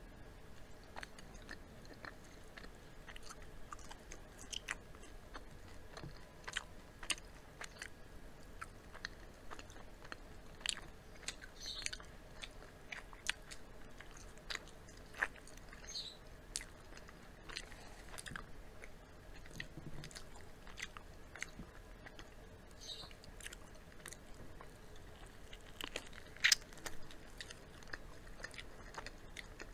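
Close-miked eating of crispy fried chicken: irregular sharp crunches of battered skin being bitten, with wet chewing between them, the loudest crunch near the end.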